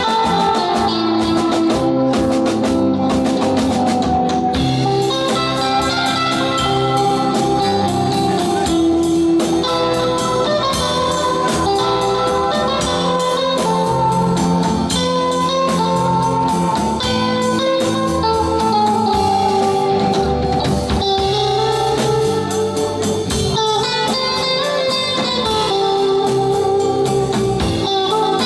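Live rock band playing an instrumental passage: electric guitar lead over bass and drum kit.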